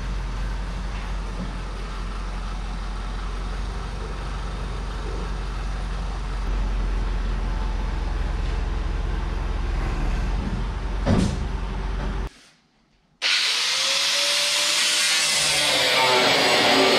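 Tractor engine running steadily with a low drone as it backs a feed mixer wagon, with a single knock about eleven seconds in. The sound then cuts out briefly, and loud guitar music takes over.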